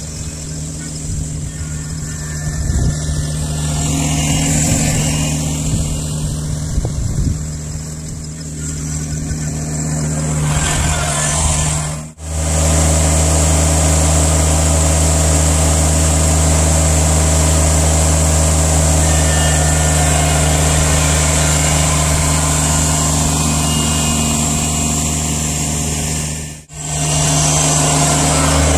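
Kubota BX23S compact tractor's three-cylinder diesel engine running steadily, fainter at first and much louder and closer from about twelve seconds in. The sound cuts out briefly twice.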